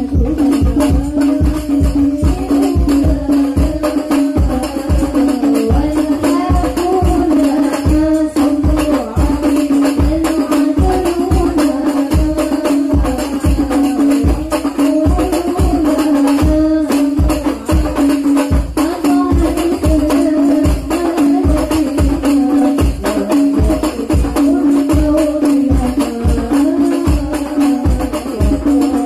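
A women's group singing through a microphone, accompanied by rebana frame drums and jingles beating a steady rhythm of low drum strokes.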